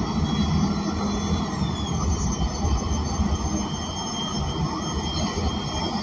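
Inside the cabin of an ENC Axess transit bus, its Cummins Westport L9N natural-gas engine and Voith D864.6 automatic transmission are running, giving a steady low rumble with faint high-pitched whines over it; no air-conditioning fan is running.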